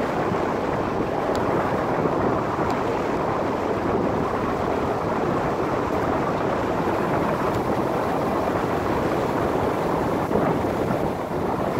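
Steady rushing wind on the microphone of a camera mounted on a moving bicycle, with a few faint ticks.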